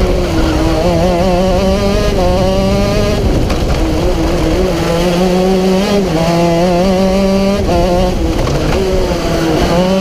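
Racing kart engine running hard, heard from on board. Its pitch climbs as the kart accelerates down the straights and drops sharply a few times as the driver lifts for corners.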